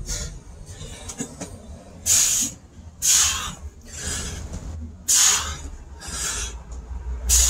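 A man breathing hard and forcefully, one hissing breath about every second, as he works through push-ups at full exertion. A steady low rumble of wind on the microphone runs underneath.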